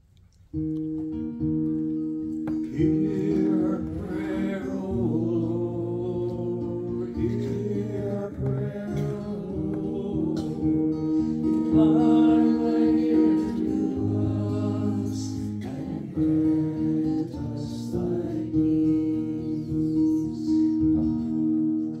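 Slow music starts about half a second in: long held accompanying chords with a voice singing a wavering melody over them.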